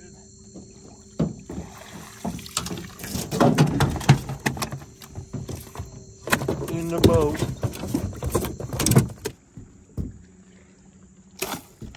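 Two stretches of loud knocking and splashing, a few seconds each, mixed with raised voices, over a faint steady hum.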